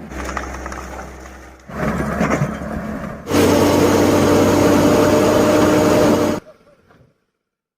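Heavy diesel engine of construction machinery running steadily, in three short clips cut together, the last one loudest, then cutting out about two-thirds of the way through to silence.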